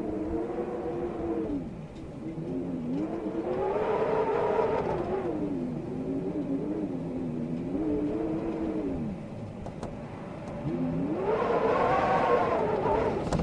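Storm wind howling in gusts: a pitched howl with several overtones that rises and falls in swells every few seconds. It eases briefly about two seconds in and again for a second or so near the ten-second mark, then swells to its loudest near the end.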